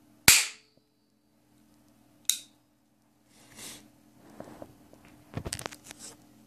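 A metal matchstick-firing toy pistol goes off with a sharp crack and a short fizz, followed by a second, quieter crack about two seconds later. After that comes a scatter of clicks and rattles as the pistol is handled and laid down.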